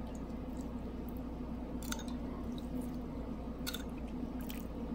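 Vinegar-and-sugar dressing being poured over shredded chicken and mint in a metal bowl: soft wet squishes and drips, with a few faint clicks over a steady low hum.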